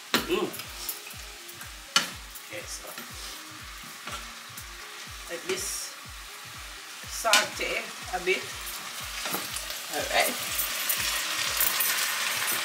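Sliced onions, carrots and sweet peppers sizzling in a saucepan while a wooden spoon stirs them, with a few sharp knocks of the spoon against the pan. The sizzle grows louder near the end.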